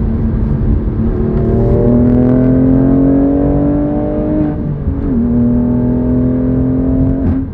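BMW M2 Competition's S55 twin-turbo inline-six accelerating hard, its pitch climbing steadily. A quick upshift drops the revs about five seconds in, then the pitch climbs again until the driver lifts off right at the end.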